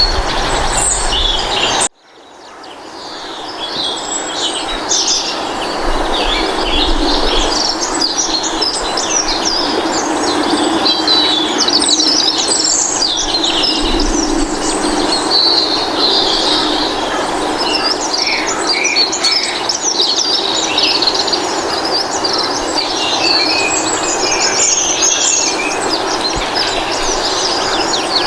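A chorus of many small birds chirping and twittering over a steady low background hum. About two seconds in, the sound cuts out abruptly and then fades back in.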